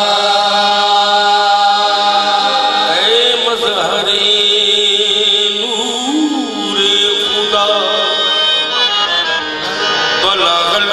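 Qawwali music: a harmonium holding steady chords while a singer's voice glides through long, drawn-out melodic phrases over it.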